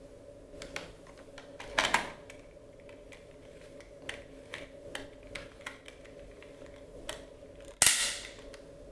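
Hard plastic clicks and knocks from a Dyson Small Ball upright vacuum's parts being handled, with two loud snaps, about two seconds in and near the end, as parts are pushed or latched into place.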